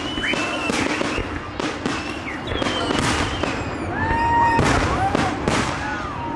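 Aerial fireworks shells bursting in quick, overlapping succession, with a bang every half second or so. High whistling tones glide in pitch between the bangs.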